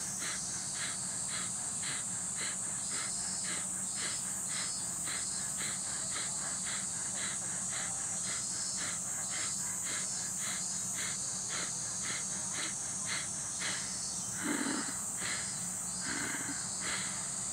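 Rapid, forceful pranayama breathing through the nose, about two breaths a second and very even. It sounds over a steady high insect drone, and two louder sounds come near the end.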